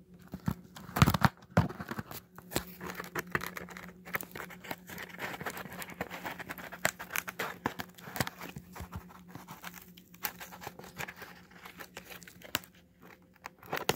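Packing tape being peeled and torn off a cardboard box, with crinkling, scraping and small knocks of fingers on the cardboard. Two louder knocks come about a second in.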